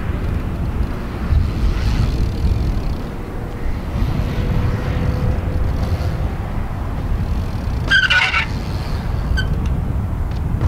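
Strong wind buffeting the microphone in a dense low rumble, with a BMX bike's tyres rolling over a concrete bowl underneath. About eight seconds in, a brief high squeak cuts through.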